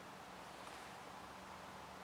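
Faint, steady background noise with a faint low hum, and no distinct sound event.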